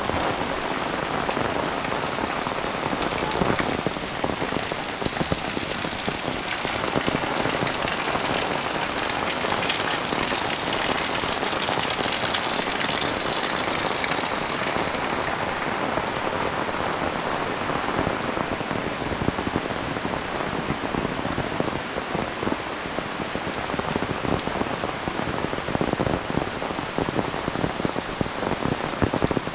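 Heavy rain falling: a steady, dense hiss with a close patter of drops. The hiss grows brighter for several seconds around the middle, then eases a little.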